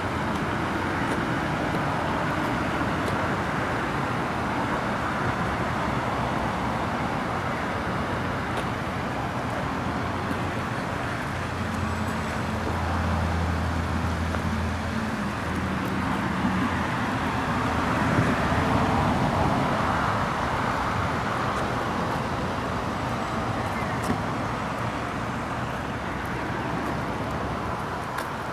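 Steady road traffic noise, with a vehicle engine humming past about twelve seconds in and another swell a few seconds later.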